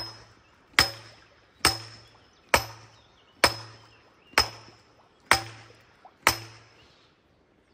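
Sledgehammer driving a steel scaffold tube into a riverbed: about eight heavy blows, a little under one a second, each a sharp clang followed by a short metallic ring from the tube. Then the blows stop.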